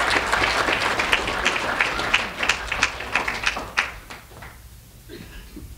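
Audience applauding, dense clapping that thins out and dies away about four seconds in.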